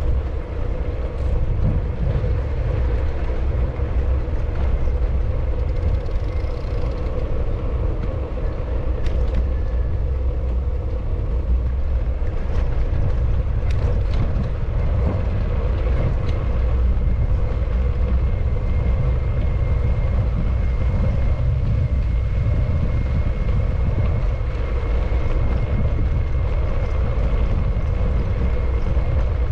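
An engine running steadily with a deep, even rumble and a constant mid-pitched drone; a faint high whine joins it about two-thirds of the way through.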